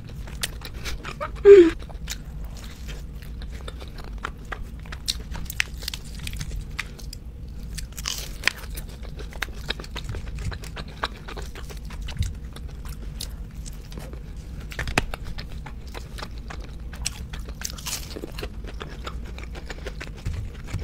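Close-miked chewing and crunching of a cheeseburger and crispy fried onion rings, with many small wet mouth clicks. A brief loud pitched sound about a second and a half in.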